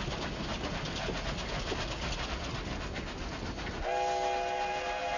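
Steam train running with a steady rattling noise; about four seconds in, the locomotive's steam whistle starts, holding a steady chord of several notes.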